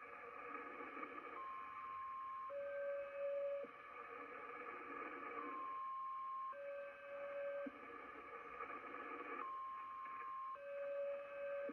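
Shortwave signal on 4635 kHz heard through a Kenwood TS-850SAT receiver: a repeating two-tone pattern, a higher beep of about a second followed at once by a lower one, the pair coming round every four seconds or so. Throughout there is a steady hiss of band static.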